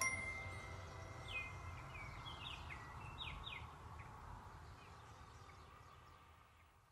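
Background soundtrack dying away: a last held note at the start, then a low steady ambient hum with a few short bird chirps. It fades out near the end.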